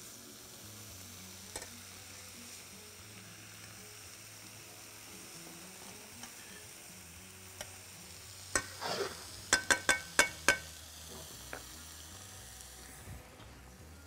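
Slices of halloumi cheese sizzling quietly in a nonstick frying pan. A little past halfway, metal tongs clack sharply about six times in quick succession as the slices are turned.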